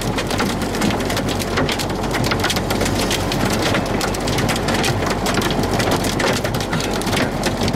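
Heavy rain pelting a vehicle's roof and windshield: a dense, steady hiss broken by many sharp individual drop impacts.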